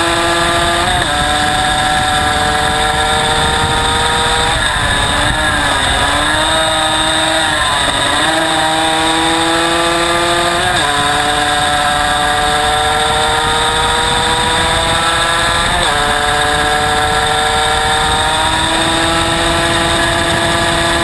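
Derbi GPR125 motorcycle engine running hard at speed, heard from the swing arm. Its pitch climbs slowly and drops sharply at each gear change, about a second in and three more times later, and wavers unsteadily for a few seconds in the middle.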